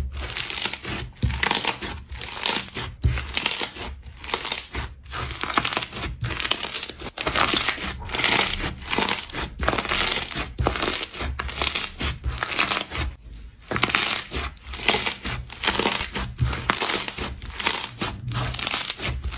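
Slime being squeezed and pressed by hand, giving repeated crackly, crinkling squishes about one to two times a second.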